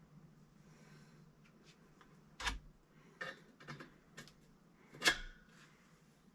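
A handful of sharp clicks and knocks from copper pipe and fittings being handled and dry-fitted together, the loudest two about two and a half seconds and five seconds in.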